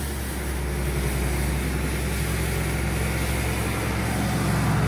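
Classic Case tractor's engine running steadily while its hydraulically driven sweeper brush scrubs across the concrete yard; the brush turns slowly because the old tractor's hydraulics lack flow. The engine grows louder toward the end as the tractor comes close.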